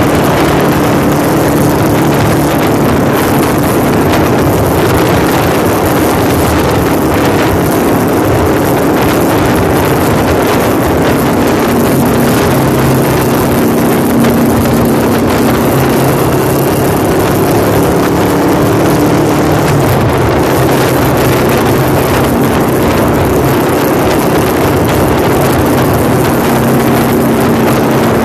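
Motorcycle engine running while riding, its note shifting in pitch a couple of times as speed changes, with wind rushing over the microphone.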